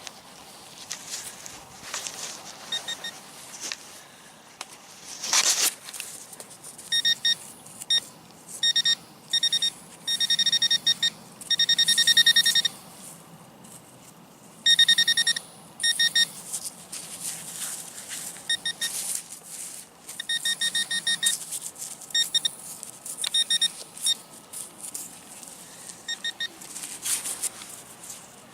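Metal detector giving short, repeated high-pitched beeps, sometimes in rapid strings, as the coil passes over a target in the dig hole. Between the beeps come scrapes and rustles of digging in soil, the loudest a few seconds in.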